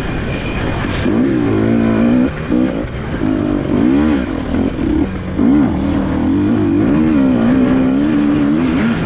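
Dirt bike engines revving up and down again and again, the pitch rising and falling with the throttle, with a quick wavering pitch in the second half.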